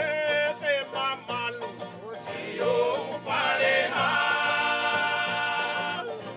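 A song: a solo singing voice over a strummed, plucked string accompaniment. The voice moves through short bending phrases, then holds one long note from about four seconds in until near the end.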